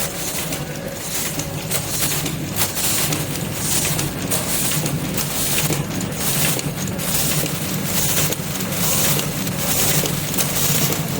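Automatic string-light soldering machine running at its wire-feeding station: a steady low hum with a fast, continuous run of repeated mechanical clacks.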